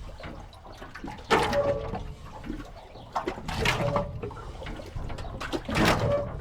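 A jetty squeaking as water splashes against it, three times about two and a half seconds apart, over steadily flowing, gurgling river water.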